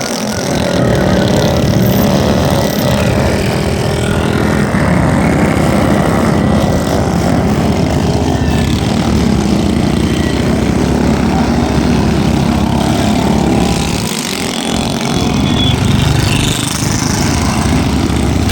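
Motor vehicle engines running steadily and loudly, with no break.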